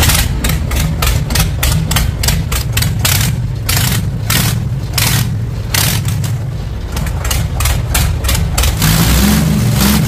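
Indo Farm 4175 DI tractor's 75 HP diesel engine running loud through a row of open straight-pipe exhausts, with sharp, irregular cracks two or three times a second over the steady engine note.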